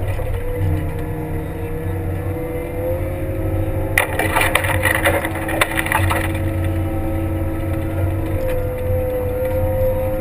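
Kramer 380 compact wheel loader's diesel engine running steadily under load, with a steady whine over it, while plowing snow. About four seconds in, a two-second stretch of crackling and scraping as the plow blade pushes snow and ice onto the bank.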